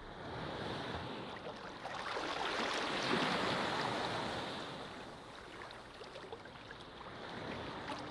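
Sea surf: a wash of wave noise that swells to a peak about three seconds in and then eases off.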